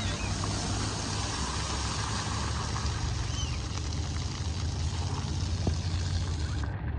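Water rushing and splashing at a splash pad as the tipping bucket empties over its canopy and the floor jets spray: a steady hiss with a low rumble underneath.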